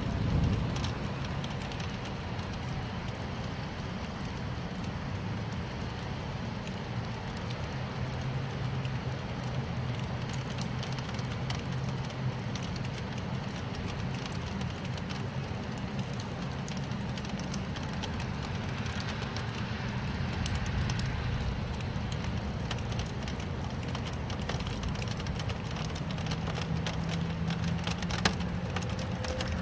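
Steady rain falling, with many small, sharp drop ticks over an even hiss and a low, steady hum underneath.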